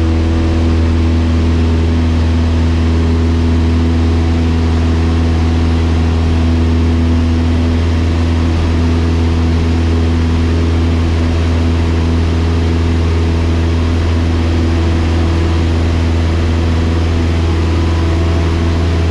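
Cessna 172's piston engine and propeller running steadily at takeoff power through the takeoff roll and initial climb, heard from inside the cabin as a loud, even drone with a deep hum.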